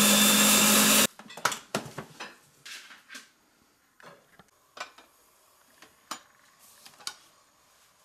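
Silvercrest Monsieur Cuisine food processor blending at speed 8, a loud steady whir with a low hum, as it froths a cream sauce; the motor cuts off suddenly about a second in. Then a series of sharp plastic and metal clicks and knocks as the lid is lifted off the steel bowl.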